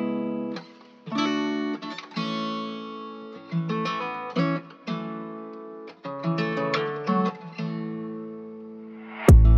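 Background acoustic guitar music: strummed and plucked chords, each ringing out before the next. A loud, deep thump comes near the end.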